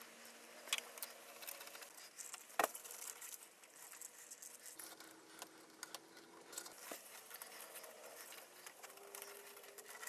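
Faint handling noises from hands fitting a rubber intake tube and hoses onto an ATV engine: soft rustling with a few sharp clicks, the loudest about two and a half seconds in.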